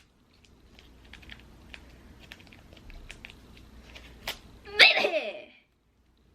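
A woman sneezes once, loudly, about five seconds in; it is a voiced sneeze that falls in pitch. Before it there are faint scattered clicks, like typing on a keyboard.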